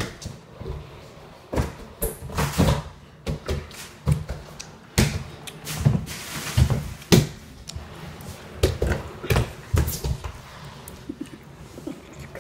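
Irregular thumps and knocks, with short scraping slides, as a child scoots across a laminate kitchen floor on his belly on a pink plastic disc, his hands slapping the floor and his body bumping into things.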